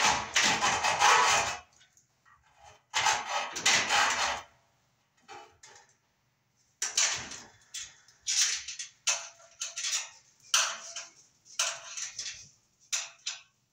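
Metal armor of MC cable being cut through with noisy cutting strokes: two long strokes, then a quicker run of about eight short ones in the second half.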